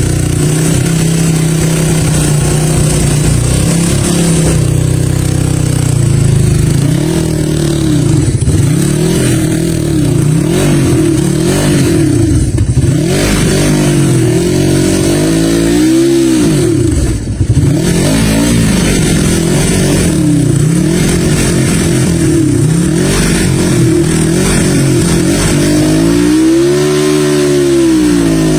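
1976 Yamaha XS360 four-stroke parallel-twin engine running under way, its pitch rising and falling again and again as it is revved and eased off. It drops deep and climbs back sharply about two-thirds of the way through.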